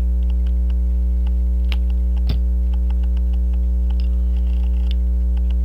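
Steady loud electrical mains hum with a ladder of overtones, under faint scattered small clicks of metal tools and watch parts being handled, one sharper click about two seconds in.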